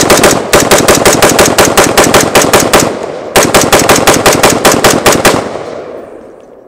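Huldra MK IV AR-15 rifle fired semi-automatically as fast as the trigger can be pulled, about six shots a second, in two strings with a short pause just under three seconds in; the shots stop about five and a half seconds in and their echo dies away. Firing brass-cased ammunition, the rifle feeds and cycles every round without a stoppage.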